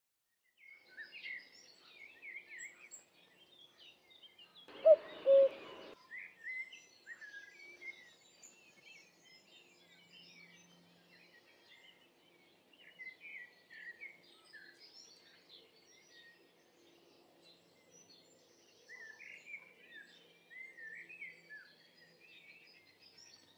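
Songbirds chirping and singing in short scattered phrases. About five seconds in, two short loud sounds come close together.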